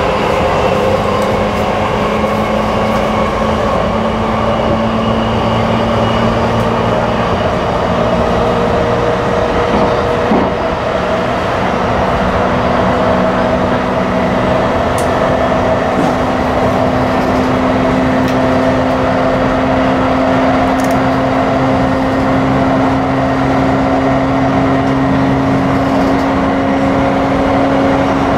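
Running sound inside a JR East E235-1000 series electric train between stations. The Mitsubishi SiC-VVVF inverter and traction motors give several steady humming tones over wheel-and-rail rumble, and the main low tone steps up in pitch about eleven seconds in.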